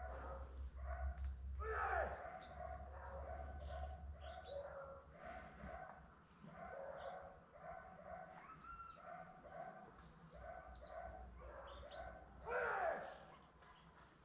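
Faint hunting dogs barking in quick runs of barks, with two long falling howls, one about two seconds in and one near the end; small birds chirp high above them. A low rumble of wind or handling noise comes and goes underneath.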